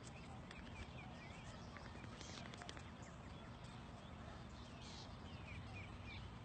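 Faint outdoor background with small birds chirping over and over, and a few light clicks about two to three seconds in.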